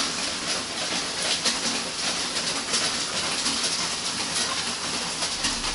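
Steady heavy rain falling, an even hiss of drops.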